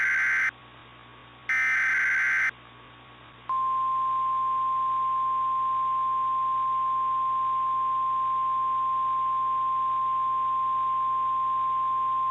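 Emergency Alert System SAME header data bursts on NOAA Weather Radio: a harsh, screeching data burst ends half a second in and another, about a second long, follows a second later. After a one-second pause the steady 1050 Hz Weather Radio warning alarm tone begins and holds, the signal that a warning message follows.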